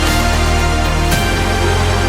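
Electronic background music with a steady deep bass and a hit about a second in.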